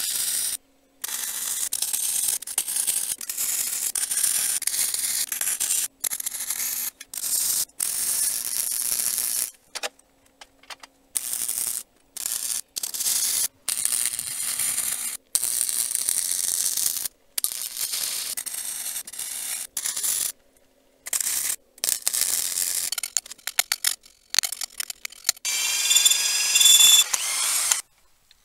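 Electric arc welding on steel angle iron: the arc crackles and hisses in short runs of a second or a few seconds, each starting and cutting off abruptly as the welds are laid down in stitches. The last run, near the end, is the loudest and carries a high whine.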